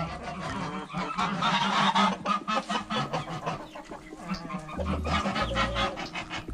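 Geese honking in a cluster of calls, strongest about a second and a half in, over background music with a steady beat.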